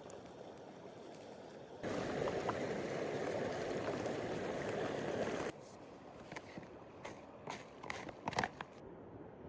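Water poured into a freeze-dried meal pouch, a steady gurgling rush lasting about three and a half seconds that stops abruptly, followed by a few short crinkles of the foil pouch.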